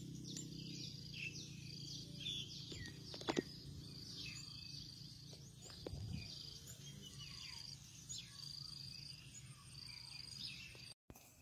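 Faint outdoor ambience of birds and insects: repeated short high trills and falling chirps over a low steady hum, with one sharp click about three seconds in.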